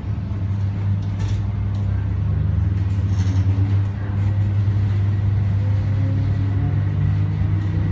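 Hong Kong East Rail line MLR electric train heard from inside the carriage while running: a steady low rumble with a motor whine that rises in pitch as the train picks up speed. A couple of sharp clicks about a second in.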